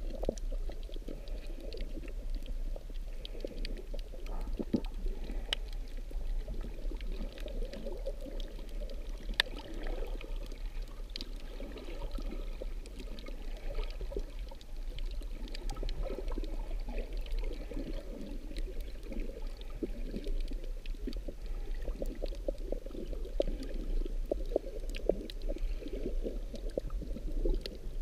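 Underwater ambience picked up by a camera held beneath the surface over a coral reef: a muffled, steady low rumble of moving water with a dense, irregular crackle of small clicks throughout.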